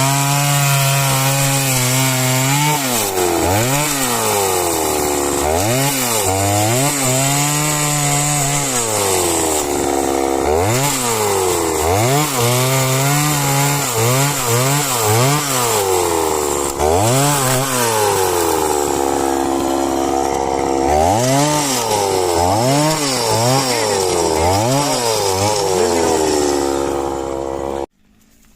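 Chainsaw cutting wood, its engine note dipping again and again under load and rising back each time. The sound cuts off abruptly near the end.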